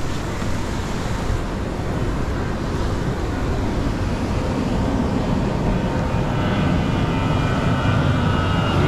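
A distant engine drone growing steadily louder, a whining tone coming in over the last few seconds, over wind buffeting and surf.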